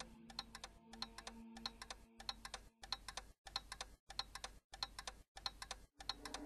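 Quiet, steady clock ticking, about one and a half ticks a second, each tick a quick cluster of clicks.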